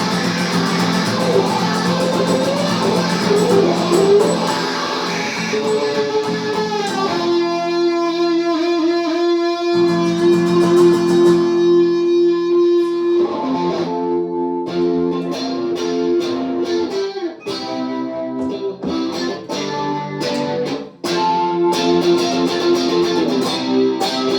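Guitar playing an improvised jam: picked notes and chords, with one long sustained note in the middle, then single notes picked with short gaps between them.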